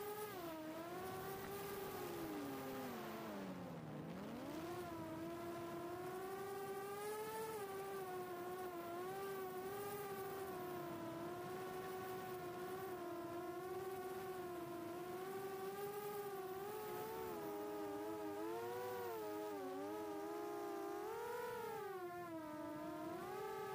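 A 4-inch FPV quadcopter's brushless motors (HGLRC 1303.5 4500kv) and propellers whining in flight, the pitch wavering up and down with throttle. Just before four seconds in, the pitch drops steeply and then climbs straight back as the throttle is cut and punched again.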